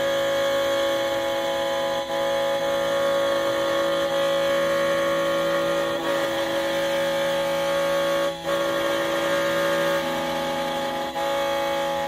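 Background music of long sustained chords, shifting to a new chord every couple of seconds.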